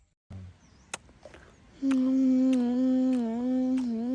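A person humming one long, steady "mmm", starting about two seconds in and lasting about two and a half seconds. Before it there is a brief dead silence and a faint click.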